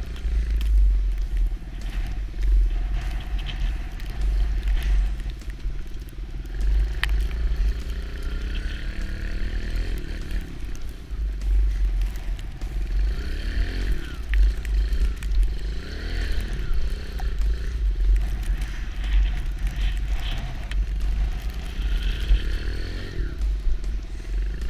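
Kawasaki KLX110 dirt bike's small single-cylinder four-stroke engine revving up and down as it is ridden, its pitch rising and falling repeatedly, over a steady low rumble of wind on the microphone.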